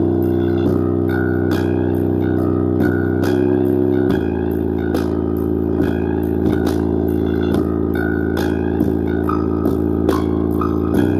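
Bass-heavy music played loud through a JBL Flip 4 Bluetooth speaker with its outer cover removed. It has sustained deep bass notes over a steady beat, and the bass drops lower about four seconds in.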